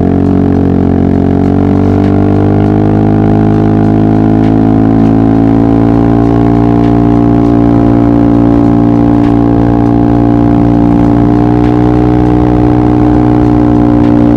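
Yamaha XMAX scooter's single-cylinder engine running at a steady cruise, its pitch levelling off after acceleration and holding nearly constant.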